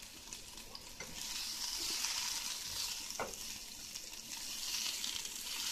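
Sliced bell peppers and onions sizzling in oil in a frying pan, the sizzle getting louder about a second in, with a couple of light clicks as they are stirred.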